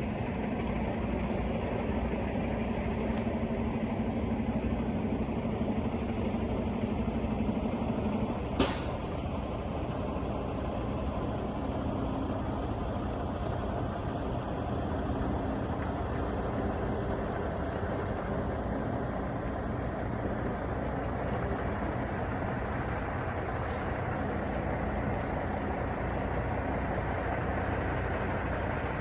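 Semi truck's diesel engine running steadily, with one short sharp hiss of air about a third of the way in, typical of the air brakes. The engine's steady hum drops off right after it.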